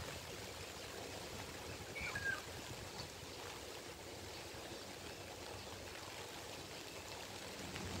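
Steady hiss of water, with a brief high chirp about two seconds in.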